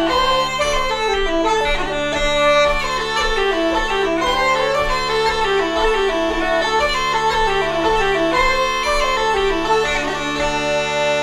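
Uilleann pipes and a wooden flute play a jig together over the pipes' steady drones. About ten seconds in they settle onto a long held closing note.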